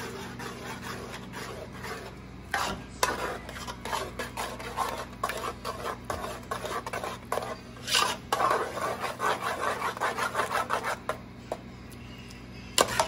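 A metal spoon stirring thick cheese sauce in an aluminium stockpot, scraping the bottom and sides in a fast run of rasping strokes that die away about two seconds before the end. Near the end there is a single sharp knock.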